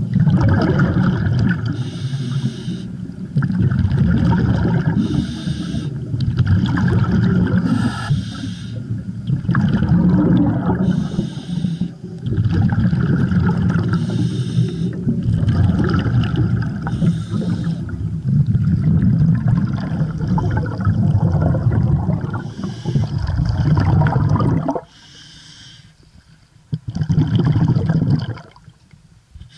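Scuba diver breathing underwater through a regulator: a short hiss on each inhale, then a longer bubbling exhale, repeating about every three seconds. The breathing goes quiet briefly near the end, then one more bubbling exhale.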